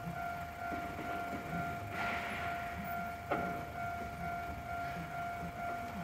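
Japanese railway level-crossing warning bell ringing steadily at one pitch while the crossing is closed.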